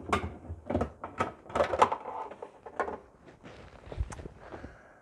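Plastic fuel pump hat assembly and its lines knocking and rattling as it is lifted and handled over the open fuel tank: a run of irregular knocks in the first three seconds, loudest near the middle, then a single knock about four seconds in.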